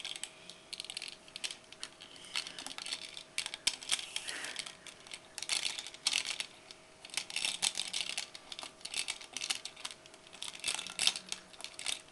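Metal bead chain clicking and rattling against a clear plastic bottle as it is fed down through the neck, many quick light clicks in uneven clusters with short pauses.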